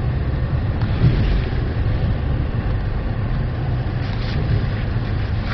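Acura MDX SH-AWD driving off-road, its engine and tyres making a steady low noise.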